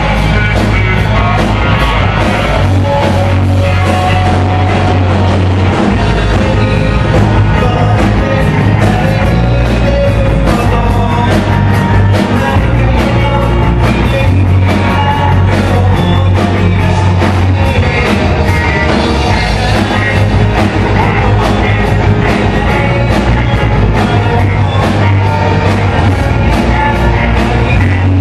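Live rock band playing loudly, with electric guitars, bass, drums and a lead singer, heard from the audience.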